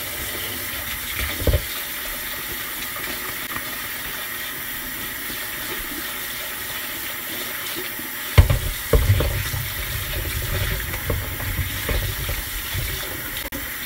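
Kitchen tap running steadily into a sink while small potatoes are rinsed, with a short knock about a second and a half in. From about eight seconds in there is a loud clunk, then uneven low rumbling and more knocks as things are handled in the running water.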